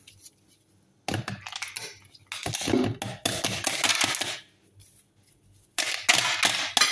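Ice cubes dropped into a blender jar, clattering and clinking in three bursts of rattling, the last starting near the end.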